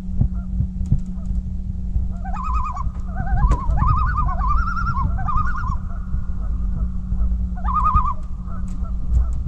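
Waterbirds calling, several wavering, warbling calls from about two to six seconds in and once more near eight seconds. A steady low hum and rumble runs underneath.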